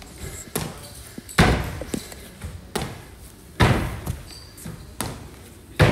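Feet landing on a plyometric box during repeated box jumps. A heavy thud comes about every two seconds and rings briefly in the hall, with a softer knock between each pair.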